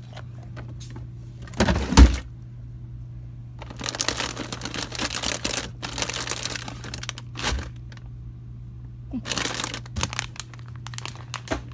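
Rummaging in a refrigerator: a sharp knock about two seconds in, then long stretches of rustling and crinkling plastic packaging as a drawer and a plastic-wrapped block of cheese are handled, over a steady low hum.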